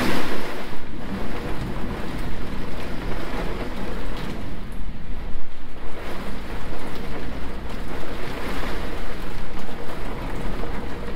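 Heavy rainstorm: a steady rush of rain with gusting wind buffeting the phone's microphone, rising and falling in loudness.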